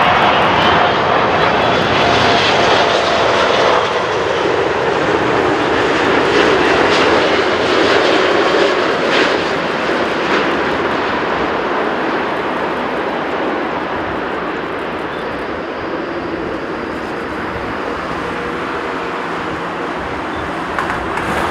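Airbus A380-861 landing on final approach, its four Engine Alliance GP7200 turbofans giving a steady jet roar. The roar's tone slowly falls in pitch as the airliner passes close by and moves on toward the runway.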